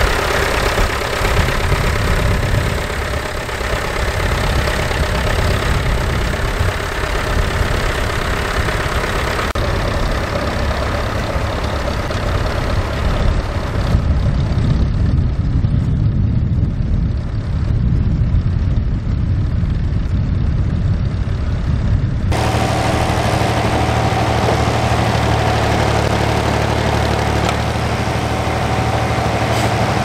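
Vintage tractor engines running while pulling ploughs, heard in several shots one after another. The sound changes abruptly at each cut. The last several seconds are a steadier low engine note with a faint steady whine above it.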